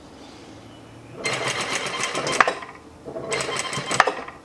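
Domestic sewing machine stitching in two short runs: the first starts about a second in, and a second run follows after a brief pause.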